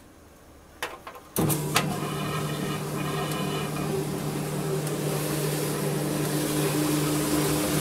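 Old Maytag top-load agitator washer starting a wash load: a few clicks, then about a second and a half in the motor starts and runs with a steady hum while a rushing noise slowly builds.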